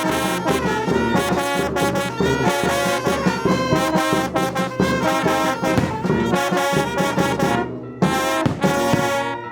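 Brass band (banda de viento) playing, with trumpets and trombones over drums. Near the end the music breaks off briefly, then closes with a few loud final chords.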